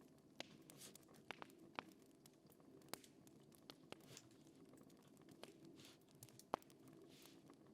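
Faint crackling of a fire: sparse, irregular sharp pops, the loudest near the end, with a few short soft hisses over a low steady background.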